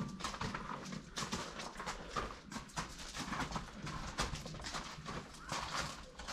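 Stallions' hooves clip-clopping on a hard floor: many irregular knocks as the horses walk and shift about.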